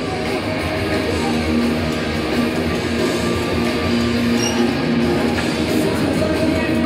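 Rock music with strummed electric guitar playing over the ice rink's public-address system.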